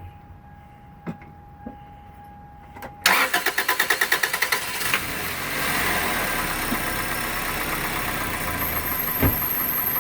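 2001 Toyota Corolla's 1.8-litre four-cylinder engine being started: a few light clicks, then about three seconds in the starter cranks it in rapid even pulses, it catches within a couple of seconds and settles into a steady idle. It is running on a substitute spark plug in cylinder 3, where the old plug was fouled by oil, and the mechanic expects it to miss a little from that oil.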